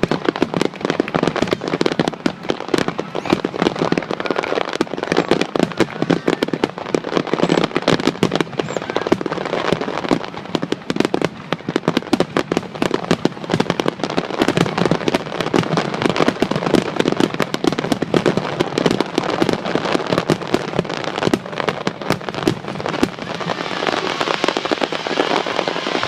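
Fireworks display: a dense, continuous barrage of rapid bangs and pops, turning toward a higher crackling hiss near the end.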